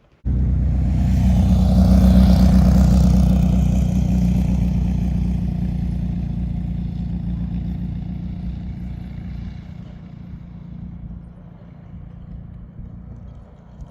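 A motor vehicle drives past, its engine and tyre noise starting abruptly, loudest about two seconds in, then fading away over the next ten seconds.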